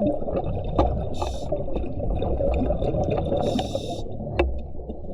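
Scuba diver breathing through a regulator underwater: two short hissing inhalations about a second and three and a half seconds in, over a constant gurgle of exhaled bubbles, with a few sharp clicks.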